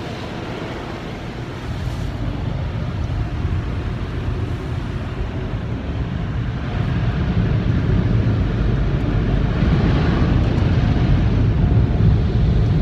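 Automatic car wash machinery heard through the closed car's cabin: a steady rushing roar that grows louder about two seconds in and again around seven seconds in.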